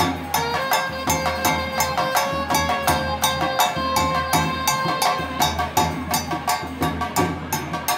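Tamil devotional procession music: a saxophone holds one long note, then moves on with the melody, over a fast, steady beat on slung barrel drums played with sticks.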